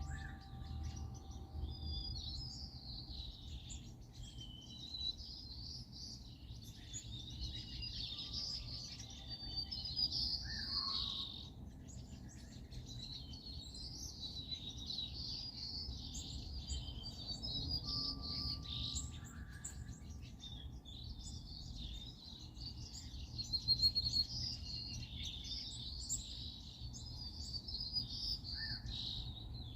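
Many small songbirds chirping and twittering continuously, their calls overlapping, over a steady low rumble.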